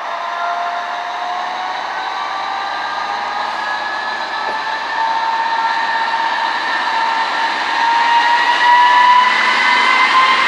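ČD class 854 diesel railcar pulling away from a standstill. Its engine and transmission give a whine of several tones that rises slowly in pitch and grows louder as it accelerates past.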